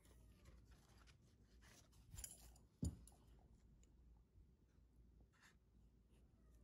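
Faint handling of tableware and food over near-silent room tone: a brief rustle about two seconds in, then one sharp click, with small scattered ticks around them.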